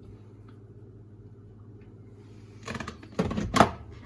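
Dishwasher filter and trap parts being handled and pulled out, giving a quick cluster of knocks and clatters about three seconds in over a steady low hum.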